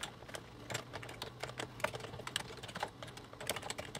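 Typing on a computer keyboard: a quick, uneven run of key clicks, several a second.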